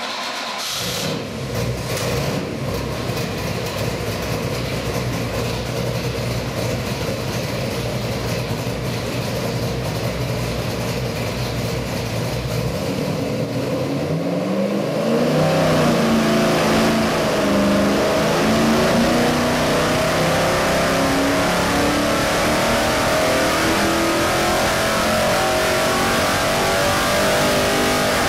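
Chrysler 360-based 408 cubic-inch stroker V8 with a Holley carburetor running on an engine dyno. It idles steadily, just after starting, for about thirteen seconds. Then it makes a dyno pull, its pitch rising smoothly and getting louder as engine speed sweeps from about 1,500 to about 6,000 rpm.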